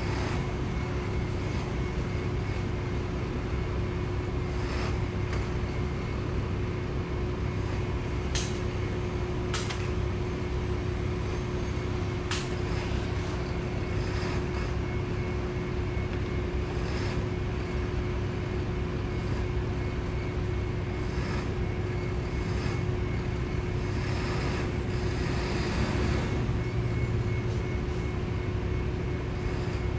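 Steady outdoor din of engines and machinery with a constant hum, broken by a few sharp clicks or knocks about a third of the way in and a brief swell in the noise near the end.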